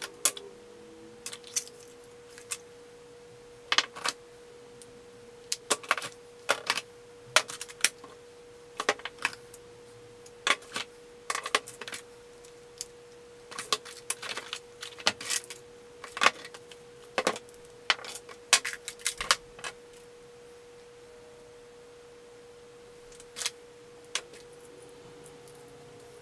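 Small items (cell phones, remotes, jewelry) clinking and clattering as they are lifted by hand out of a metal tin and set down on a table, in irregular bursts of sharp knocks. After a pause of a few seconds there is one last clink near the end.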